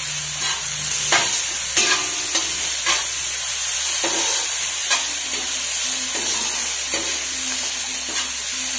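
Chopped onion, tomato and green chilli sizzling in hot oil in a nonstick kadhai as they are sautéed, with the spatula scraping and tapping on the pan every half second or so.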